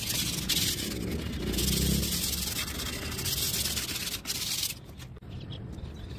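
Sandpaper rubbed by hand over a putty-filled, primed wooden cabinet door: a scratchy hiss that rises and falls with the strokes, smoothing the filler before finishing. It cuts off abruptly near the end, leaving a quieter stretch with faint ticks.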